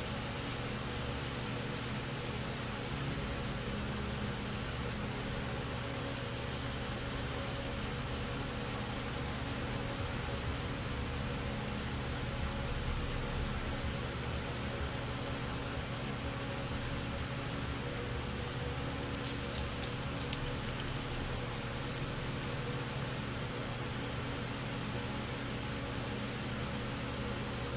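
Hand sanding of primer on a small plastic part with a sanding sponge, a soft continuous rubbing, over a steady low hum.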